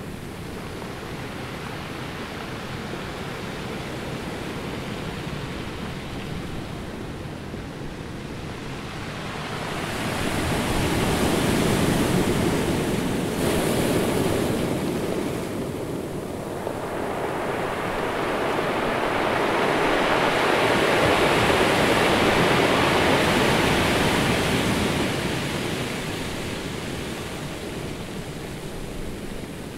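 Ocean surf: a steady wash of waves, with two larger waves swelling in and falling away, the first about ten seconds in and the second a little after the middle.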